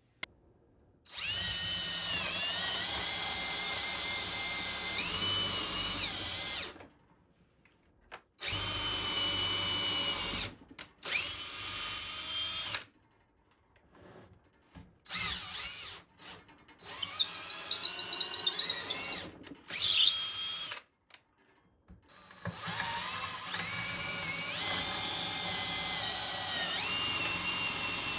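Power drill running in spurts: a run of about five seconds, a shorter run, several brief bursts, then a long run near the end. The motor's pitch rises and falls with the trigger.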